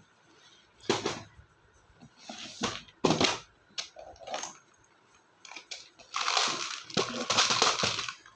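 Irregular rustling and clicking from small jewellery-making materials (string, beads) being handled, with a longer spell of rustling near the end.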